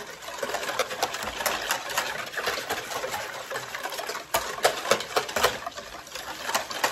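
Wire whisk beating a brine in a plastic container to dissolve the salt and sugar: quick irregular clicks and taps of the whisk against the plastic, with the liquid sloshing. The clicks are strongest about four and a half to five and a half seconds in.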